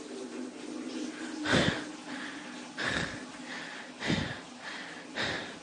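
A person breathing hard, with four loud breaths about a second apart, from the effort of climbing a steep hill trail.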